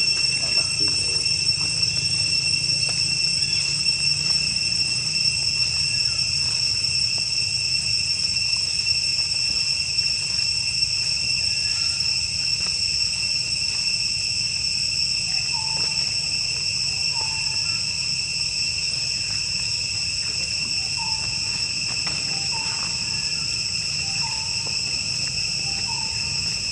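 Steady, high-pitched drone of forest insects, one unbroken pitch with overtones, over a low hum. About halfway in, faint short calls begin and repeat every second or so.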